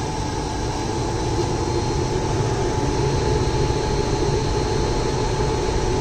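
Air handling unit's blower fan running on its variable-frequency drive, a steady hum and rush of air with a thin steady whine over it, growing louder over the first few seconds and then holding steady.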